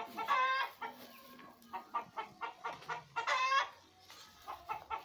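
Chickens cackling: runs of quick short clucks, each leading into a loud drawn-out squawk, twice.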